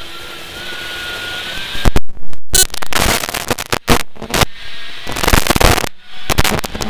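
Inside a Citroën C2 R2 rally car at speed: about two seconds of steady running with a faint, slowly rising whine, then a series of loud cracking bangs and sudden bursts of noise.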